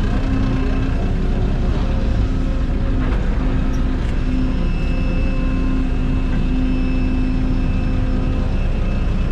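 Excavator's diesel engine running steadily under load while it digs, with a high steady whine joining in about four seconds in and a few faint knocks.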